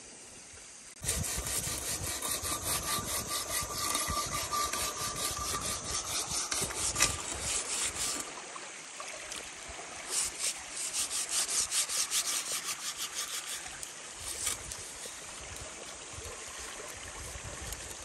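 A blackened cooking pot being scraped with a small metal hand tool: rasping strokes a few times a second, starting about a second in, with a short break midway before the strokes resume.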